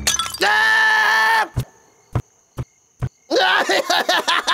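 A cartoon monkey character's long, drawn-out yell, held at a steady pitch for about a second. Then it goes quiet except for a few single sharp clicks, and near the end wavering cries start up again.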